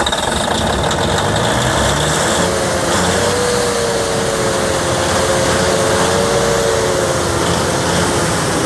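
Perkins 800 kVA diesel generator engine running steadily just after starting, freshly overhauled. A wavering whine rides over the engine noise for a few seconds in the middle.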